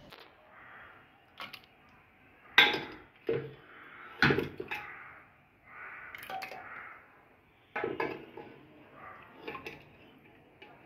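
A metal ladle knocking, clinking and scraping against metal cooking pots as pieces of meat curry are scooped out and transferred into a pot of cooked urad dal. There are a series of irregular knocks, the loudest about two and a half and four seconds in.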